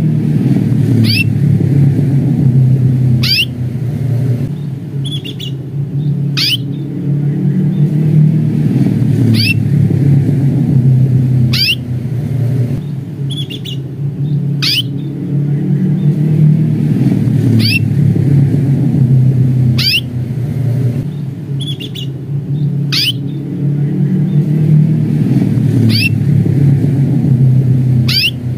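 Domestic canary giving its 'cuit' contact call: short, sharp chirps that sweep downward in pitch, repeated about every two to three seconds, over a steady low rumble.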